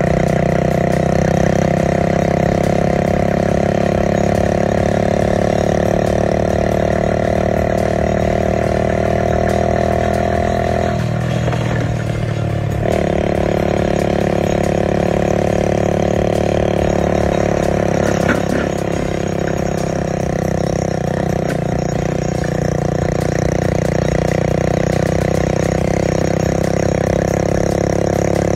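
A vehicle engine running steadily while under way. About eleven seconds in, its pitch breaks and shifts for a second or two, then it settles back to steady running.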